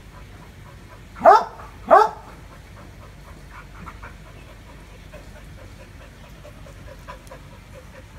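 A dog barks twice, about a second in, two loud sharp barks some two-thirds of a second apart, directed at a monitor lizard it has cornered.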